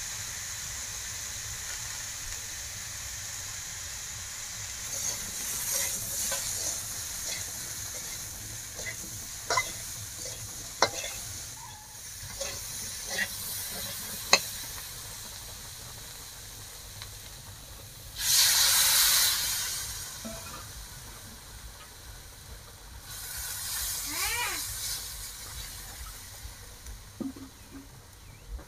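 Small whole potatoes sizzling in hot oil in an iron karahi, with a metal spatula scraping and clicking against the pan as they are stirred. About 18 seconds in comes a loud burst of hissing, as water goes into the hot pan for the gravy, and it then settles to a softer sizzle.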